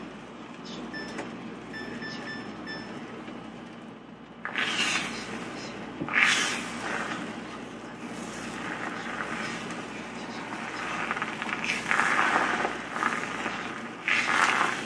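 Kitchen cooking noises: a steady faint hiss, then from about four seconds in several louder, sudden rushes of noise.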